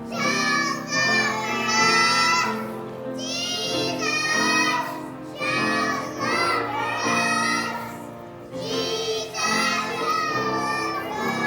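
A child singing loudly over music, in high, gliding and wavering phrases of a second or two with short breaks between them.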